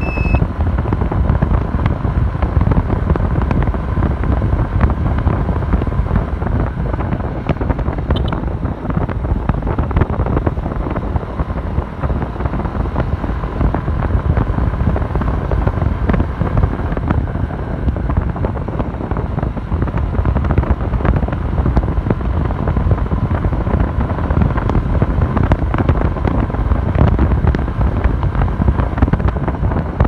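Steady wind rumble on the microphone of a moving motorbike, mixed with its engine and road noise.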